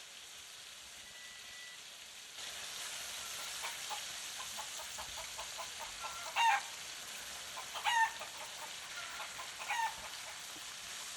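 Chicken calls: three short cackling calls a few seconds apart. Under them, a steady sizzle from chicken thighs searing in hot olive oil starts a couple of seconds in.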